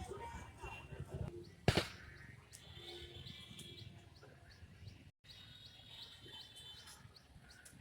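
Small birds chirping in short, repeated rising calls, with one sharp knock a little under two seconds in.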